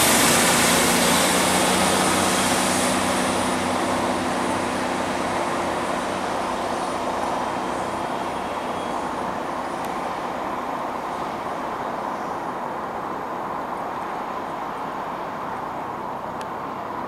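Class 150 Sprinter diesel multiple unit pulling away, its diesel engines running and fading steadily as it moves off down the line.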